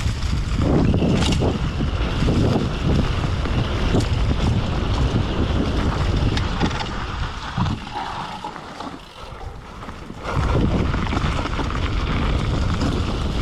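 Wind buffeting the action camera's microphone over the rumble of a downhill bike rolling fast over a rough forest trail. The noise eases for a couple of seconds past the middle, then comes back at full strength.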